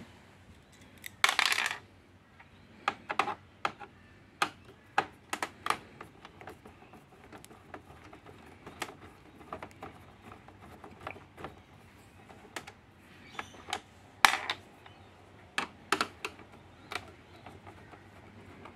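Scattered small clicks and taps of a screwdriver turning out screws and knocking against the plastic chassis of a Brother MFC-J4620DW inkjet printer. There is a short scraping rustle a little over a second in and one louder clack about fourteen seconds in.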